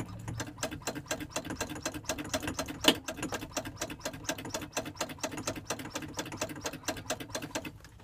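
Igniter of a 1982 Dometic three-way camper fridge clicked over and over, about six sharp clicks a second, while the safety valve is held open to light the propane burner. One click about three seconds in is louder, and the clicking stops shortly before the end.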